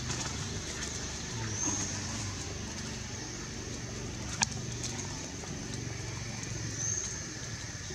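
Outdoor ambience: a steady low hum under a steady high hiss, with two short high chirps and one sharp click about halfway through.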